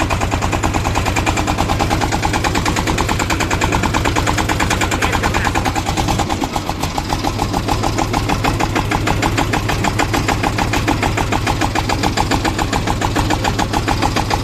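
Ford 3600 tractor's three-cylinder diesel engine running with a rapid, even chatter of firing pulses, dipping briefly about six seconds in. The uploader presents this engine sound as a problem.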